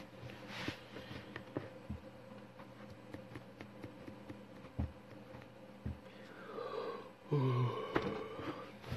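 Quiet room tone with a faint steady hum and scattered faint clicks. Near the end comes a man's short, breathy vocal sound, like a sigh or a mumble.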